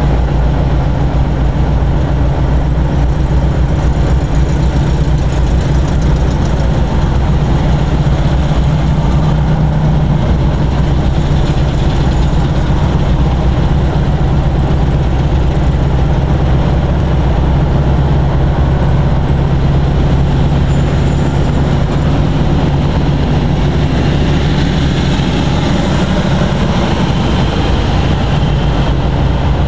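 Steady low hum of a Volkswagen's engine running at slow, near-idle speed, heard from inside the car.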